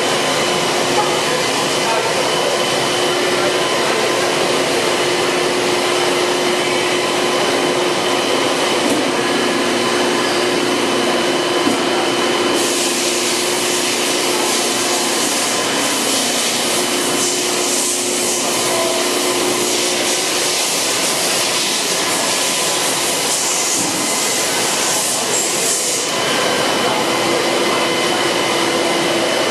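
Haas VF-2 vertical machining center running a job behind its enclosure doors: a steady hiss of flood coolant spraying over the work, with a steady machine whine under it. From about 13 to 26 seconds in, the hiss turns brighter.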